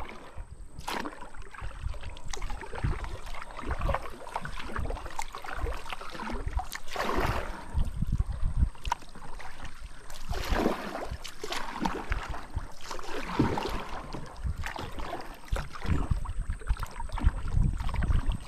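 Kayak paddle dipping and splashing in river water, stroke after stroke, with swells of splashing every few seconds.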